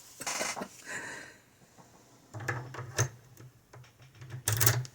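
Light clicks and rustles of lockpicking tools and a small lock cylinder being handled, with a louder clatter near the end.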